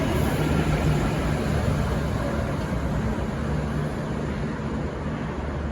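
A train running through the station: a steady low engine drone over a rumble, easing off slightly toward the end.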